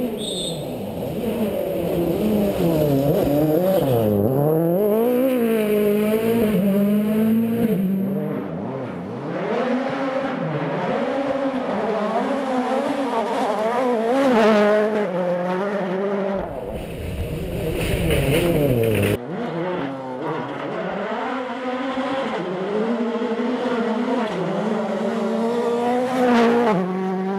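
Rally cars at full stage speed, engines revving hard and dropping through quick gear changes, with some tyre squeal. Several short passes are cut together, one ending abruptly about nineteen seconds in.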